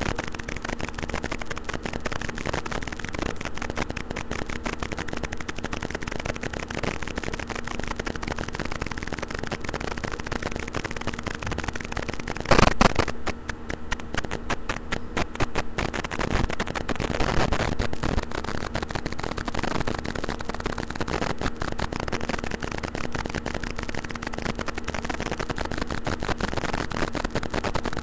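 A steady crackling hiss made of many small clicks, with one loud knock about twelve and a half seconds in.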